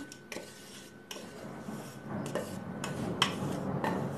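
A spoon scraping crumbly roasted-flour filling out of a metal pot, with a series of sharp clinks of the spoon against the pot and a rasping scrape that grows louder about halfway through.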